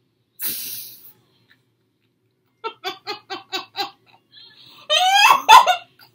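A young woman laughing. A short breathy burst comes first, then a quick run of about six 'ha's, then loud, high-pitched squealing laughter near the end.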